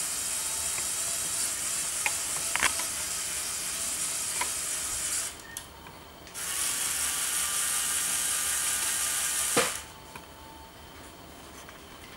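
A Lego Power Functions L motor whirring through the crane's gears as it winds the winch line, hoisting a bucket of bricks as a load test. It runs for about five seconds, stops for about a second, then runs again for about three seconds and stops with a click.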